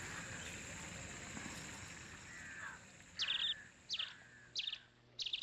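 A bird calling four times in quick succession, short harsh calls about two-thirds of a second apart, starting a little past halfway through, over a steady outdoor hiss.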